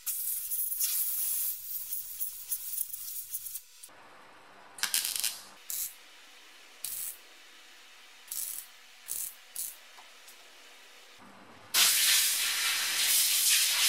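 A compressed-air blow gun hisses for a few seconds. Then come short crackling bursts of MIG welding, tack welds on a steel patch panel, several of them spaced a second or so apart, and a longer welding burst of about two seconds near the end.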